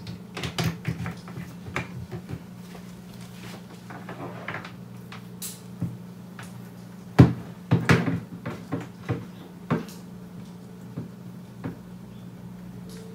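Scattered clicks, knocks and rattles of a plastic laptop-style power brick and its cables being handled, plugged and set down on a wooden desk, with the loudest knock about seven seconds in followed by a quick run of smaller ones.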